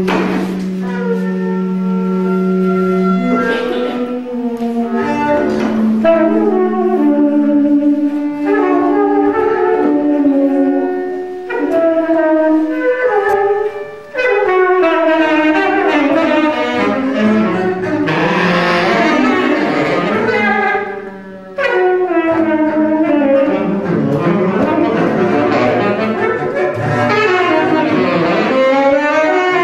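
Instrumental music: long held notes at first, then fuller passages with many notes wavering and sliding in pitch, with two short pauses.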